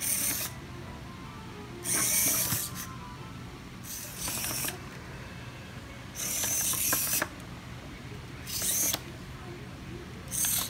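Two hobby servo motors of a small Arduino walking robot whirring in short bursts about every two seconds as they swing its body back and forth.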